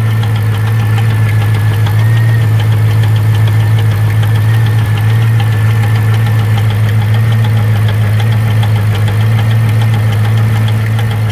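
C5 Corvette Z06's LS6 V8 engine running steadily with a repeated ticking knock over the engine hum, a strange knock that comes in threes, which the owner suspects is a valve.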